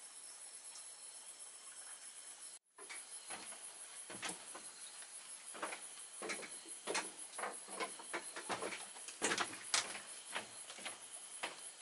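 Crickets chirping steadily, then, after a brief break about two and a half seconds in, a run of irregular knocks and creaks from footsteps on a bamboo slat floor, loudest near the end.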